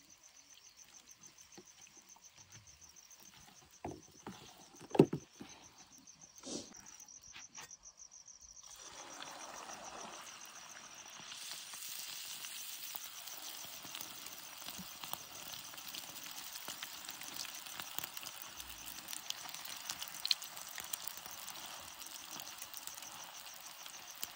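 Hot oil sizzling steadily as food fries in it, starting about nine seconds in and growing stronger a couple of seconds later. Before it, a steady high trill like crickets and a few sharp knocks, the loudest about five seconds in.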